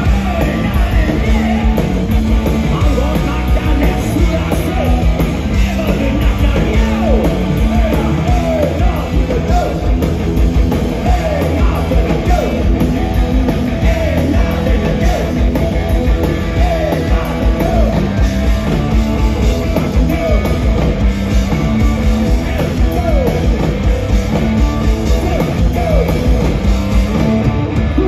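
Live punk rock band playing loud: bass guitar, electric guitar and drum kit, with a singer's voice over the top.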